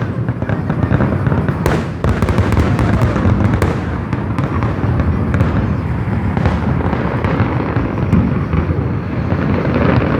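A fireworks barrage: many shells and firecrackers going off at once in a continuous run of rapid, overlapping bangs and pops, with no pause.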